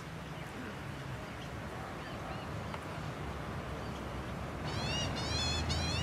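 Australian magpie beginning to carol about three-quarters of the way in: a run of high, wavering, warbling notes that grows louder. Before that there are only a few faint bird chirps over a quiet outdoor background.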